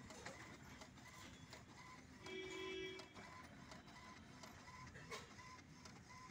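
HP DeskJet GT 5820 ink-tank printer running a colour copy: a faint, even train of short ticks from the print mechanism, about two to three a second, with a brief whine a little over two seconds in.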